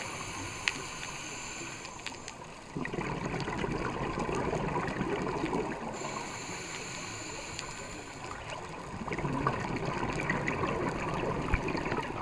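Scuba diver's regulator breathing underwater, twice: a quiet hissing inhale with a thin high whistle, then a few seconds of exhaled bubbles gurgling.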